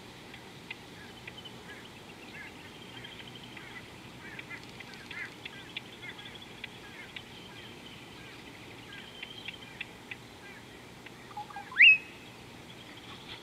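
Wild birds chirping and calling with many short scattered notes, and one loud call near the end that rises sharply in pitch.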